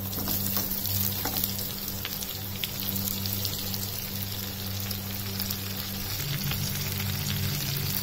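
Stuffed eggplant pieces frying in hot mustard oil in a pan, a steady sizzle full of fine crackles, over a steady low hum.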